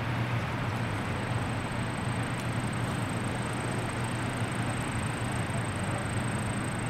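Steady rushing outdoor background noise with a low hum underneath and a faint, thin high whine; no distinct events stand out.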